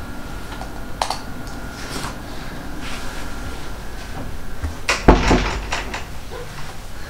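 A person moving about a small room: scattered light knocks and clicks, then a loud, heavy thump about five seconds in.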